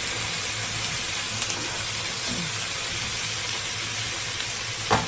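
Onions, chilli, ginger, garlic, cashews and chopped tomatoes frying in coconut oil in a pan, with a steady sizzle. A brief louder sound comes right at the end.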